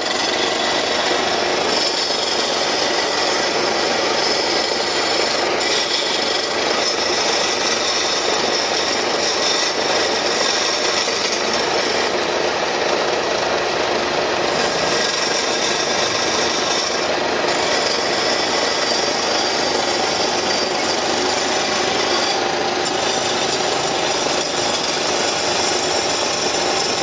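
Hand gouge cutting into a wooden blank spinning on a belt-driven wood lathe, a steady continuous scraping.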